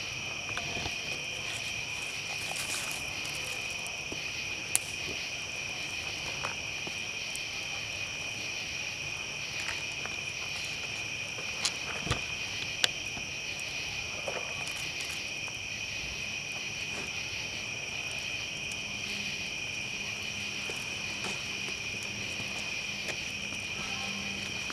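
Steady, unbroken high-pitched chorus of night insects, with a handful of short sharp clicks and pops standing out above it.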